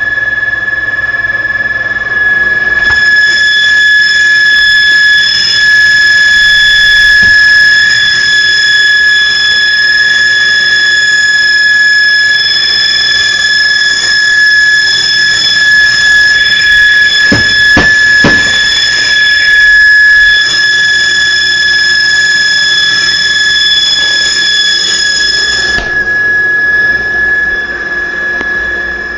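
Refrigerator making a loud, steady high-pitched whine, the faulty noise that kept its owner awake. It grows fuller about three seconds in and thins near the end.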